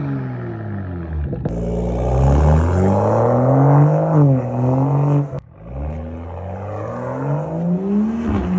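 Car engine accelerating hard. Its pitch climbs, drops back once as at a gear change, breaks off abruptly about halfway through, then climbs steadily again.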